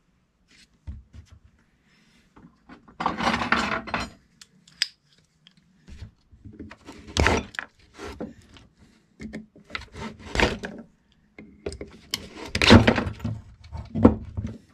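Plastic and metal rubbing and scraping in irregular bursts as a DeWalt DW735 planer motor's field is worked out of its plastic motor housing and its wires are pulled aside, with quiet gaps between.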